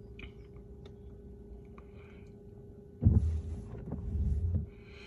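A sudden low rumbling buffet on the microphone about three seconds in, lasting about a second and a half and then cutting off, as the handheld phone is moved. A faint steady hum runs under it.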